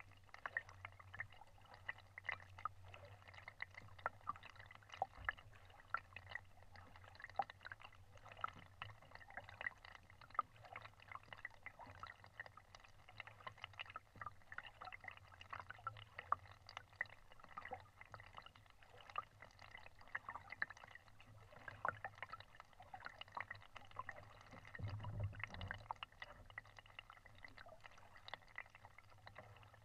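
Faint water sounds: a dense, steady crackle of small drips and gurgles over a low hum, with a short low rumble near the end.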